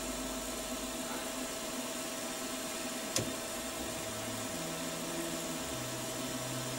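Milling machine running with a steady motor hum, its end mill spinning just above the work. There is a single click about three seconds in, and a lower hum that shifts pitch a few times in the second half.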